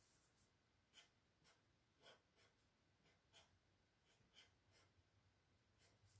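Faint short scratches of a black marker tip drawing short lines on paper, about a dozen strokes scattered through.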